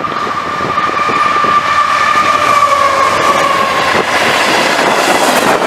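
Canadian Pacific freight locomotive's horn sounding a steady chord as it passes close by, its pitch sagging about three to four seconds in as the engine goes past. After that comes the rushing rumble of tank cars rolling by.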